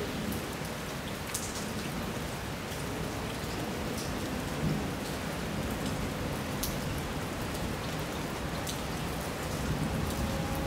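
Steady rain, with scattered sharp drips close by and a low rumble of thunder building near the end.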